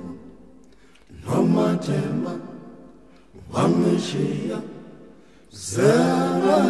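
Vocal music on the soundtrack: a voice sings three long phrases, each swelling and then fading before the next one begins.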